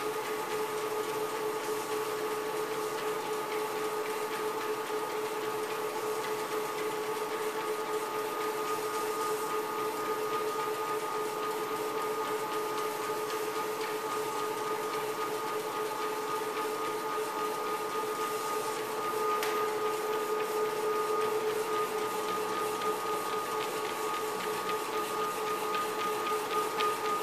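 Life Fitness treadmill running with a steady motor whine while a dog's paws step along the moving belt.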